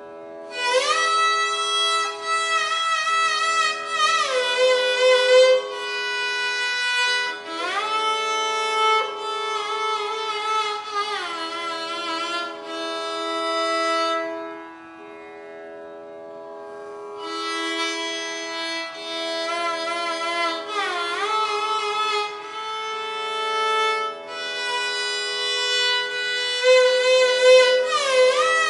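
Violin playing Carnatic swaras in raga Mayamalavagaula, ornamented with gamakas: notes waver up and down and slide between pitches, over a steady drone. There is a short pause in the melody about halfway through.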